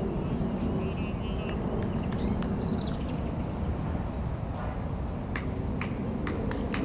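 Open-air ambience with a steady low rumble and birds chirping during the first half. In the last second and a half comes a quick series of sharp clicks.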